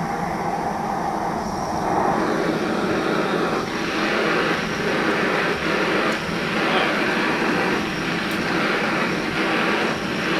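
Two Bernzomatic TS-4000 propane torches firing into a small crucible kiln with a steady roaring hiss. About three and a half seconds in, as the kiln body is lifted off and the flame burns in the open, the roar grows fuller.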